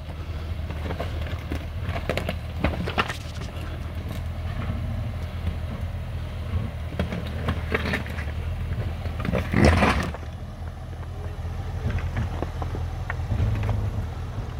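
Range Rover Sport crawling slowly over loose rock: a low, steady engine hum under scattered crunching and clicking of stones under the tyres, with one louder grinding crunch about nine and a half seconds in.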